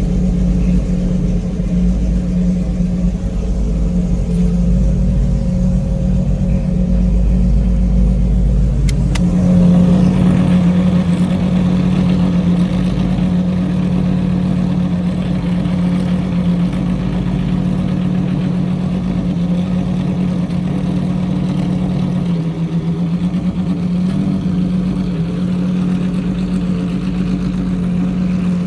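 Pagani Zonda R's V12 engine running at a steady, even pitch. About nine seconds in there is a brief click, and the deep rumble beneath the engine note falls away while the sound turns brighter.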